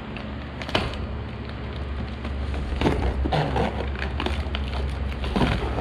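Plastic wrapping crinkling and tearing as it is pulled off a new flywheel: a run of irregular sharp crackles over a steady low hum.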